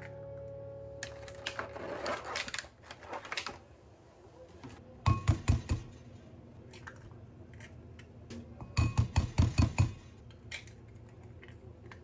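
Eggs being cracked into a glass mixing bowl. First come crackling clicks as a shell is pulled apart and emptied. Then there are two quick runs of sharp taps as the next eggs are knocked to crack them: about five taps around five seconds in, and six or seven around nine seconds in.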